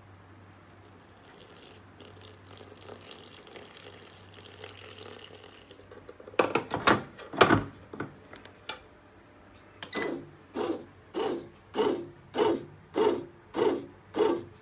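Water trickling into a bread machine pan, then several loud clunks as the pan is seated in the machine. About ten seconds in the machine gives a short beep, and its kneading blade starts turning in short, even pulses, a little under two a second, as it begins mixing the flour.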